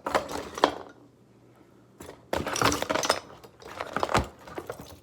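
Small hard fidget toys clicking, clinking and rattling as they are handled, in three short bouts, with a knock near the end.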